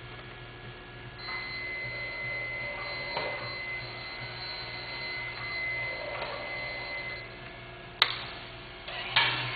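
The motorized 2-3-2 leg mechanism of an R4-G9 astromech droid replica running, a steady high whine for about six seconds, followed by a sharp click about eight seconds in and a louder clatter near the end as the mechanism shifts the droid's stance.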